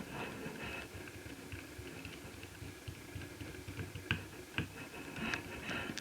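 Hands handling small netbook parts: light ticks and scraping, with two sharp clicks about four seconds in and a short scratchy rustle near the end, over a faint steady hiss.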